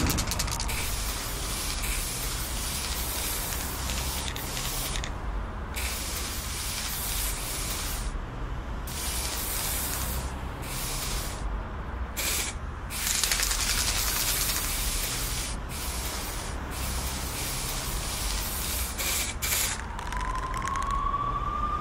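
Aerosol spray-paint cans spraying in hissing bursts of one to a few seconds, broken by short pauses. A rising whine begins near the end.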